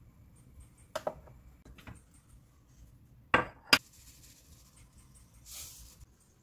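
Kitchen handling sounds around an earthenware pot of steamed egg: a few light clinks, then two sharp clicks a little under half a second apart, which are the loudest, and near the end a brief shaking hiss as a shaker sprinkles seeds over the cheese topping.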